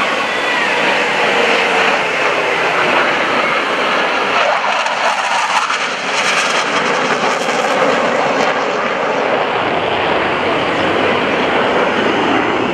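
Loud, steady jet roar of US Navy Blue Angels F/A-18 Hornet fighter jets in flight, with a crackling edge in the middle of the roar.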